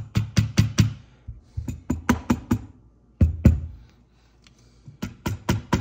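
Rubber mallet tapping a Benjamin 397S air rifle to knock its stock loose from the action. It strikes in quick runs of four or five sharp blows, with short pauses between the runs.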